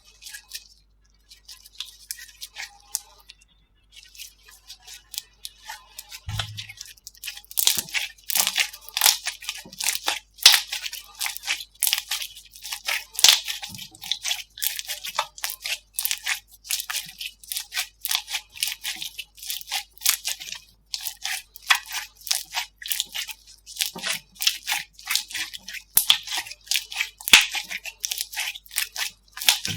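Slime being squeezed and pressed by hand, giving a rapid run of crackling, crunchy pops. The pops are sparse and soft for the first few seconds, then come much denser and louder from about seven seconds in.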